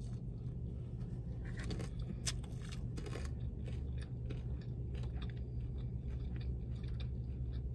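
Close-up chewing of a bite of pizza with thick crust: irregular faint wet clicks and small crunches from the mouth, over a low steady rumble.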